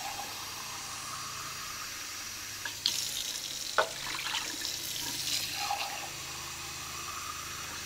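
Kitchen tap running steadily into a sink as an empty soup can is filled with water for a slow cooker, with two short clinks of the metal can about three and four seconds in.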